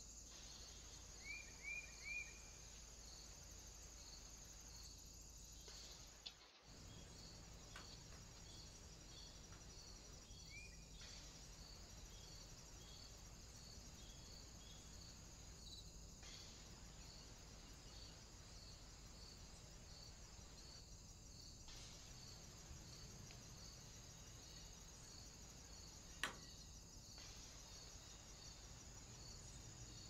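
Faint, steady insect chirping: a high pulse about twice a second over a continuous high drone. A few short rising chirps come about a second and a half in and again around eleven seconds, and a single sharp click near the end.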